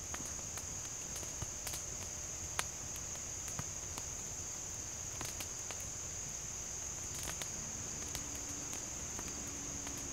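Insects droning steadily in one high, unbroken tone, with a few scattered sharp clicks and snaps, the kind a young wood fire makes as it catches.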